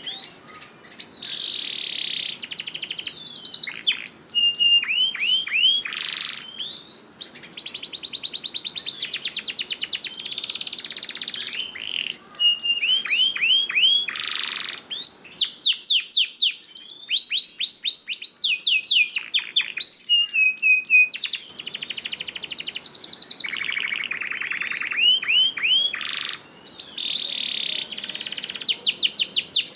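Domestic canary singing a long, continuous song of fast trills, rapid rising whistled notes and buzzy rolls, broken by a few short pauses. This is the kind of full song played as a 'master' to coax other canaries into singing.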